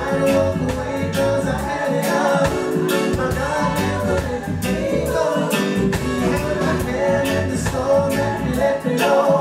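Live band playing a song with a steady drum beat and keyboards under singing, from a male lead singer and female backing singers.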